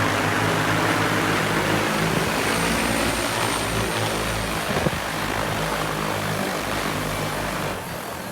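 Propellers of a P100 agricultural spraying drone in flight, a steady multi-tone whir over a rushing hiss. It slowly fades, then drops off shortly before the end, with one sharp click about five seconds in.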